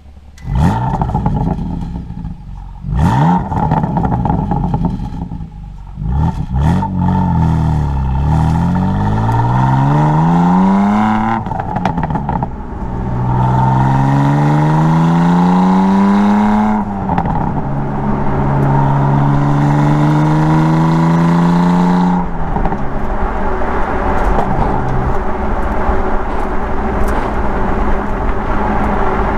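2016 BMW M3 Competition Package's twin-turbo inline-six exhaust: short revs with sharp pops and crackles, then two pulls rising in pitch under acceleration and a steady cruise note. After about 22 seconds it settles into an even rush of road and engine noise.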